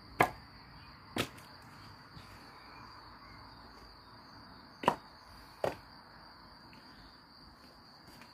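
Split firewood logs knocking against each other as they are picked up and stacked by hand: four sharp wooden knocks, two close together at the start and two more about five seconds in.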